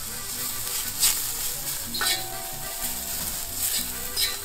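Pieces of beef fat sizzling on a very hot steel disco (plough-disc pan) as they melt to grease it. A metal fork pushing the fat around clicks against the pan a few times.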